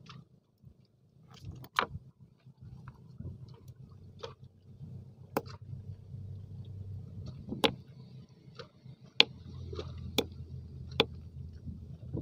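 Sharp clicks and knocks of a hand-held stone striking small sea-snail shells on a rock, a second or two apart, crushing them for bait, over a steady low rumble.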